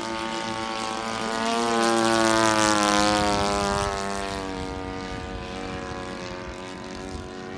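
Radio-controlled Hangar 9 Corsair model warbird making a low fly-by with its gear down, its propeller drone growing louder to a peak about two to three seconds in, then dropping in pitch and fading as it passes.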